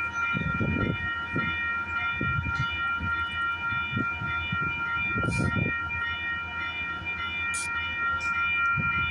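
Metrolink bilevel commuter train standing at the platform, its steady high-pitched whine of several tones running throughout over a low rumble. Two short hisses come about five and seven and a half seconds in.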